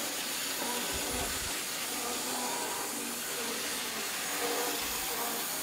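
Z-gauge model trains running around the track loops: a steady, even whirring hiss.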